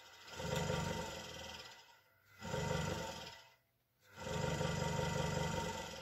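Hegner Junior scroll saw, fitted with a speed control, running idle with no workpiece: a steady motor hum with the blade arm's stroke noise. It comes in three loud stretches, cut twice by short, sudden drops to near silence.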